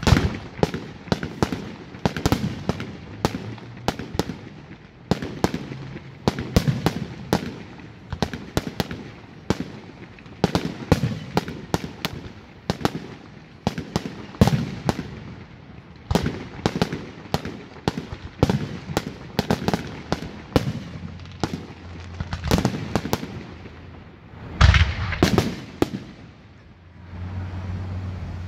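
Aerial fireworks display: a quick succession of sharp shell bursts, bangs and crackles, with the loudest bang near the end. A steady low hum comes in during the last second or so.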